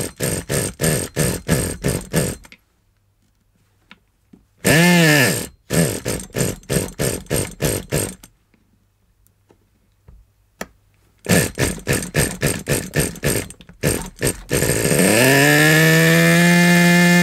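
Small two-stroke nitro glow engine of a vintage HPI Rush RC truck sputtering in three short runs of uneven popping, each dying out after a couple of seconds. About 15 seconds in it catches, revs up and runs steadily. Its carburettor is, in the owner's words, a bit blocked up.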